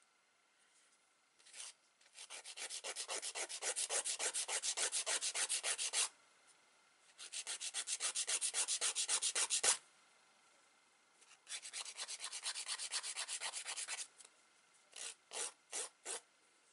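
Nail file rasping rapidly back and forth across the free edge of a long fingernail to shape it: three runs of quick strokes, about six a second, with short pauses between them, then a few single strokes near the end.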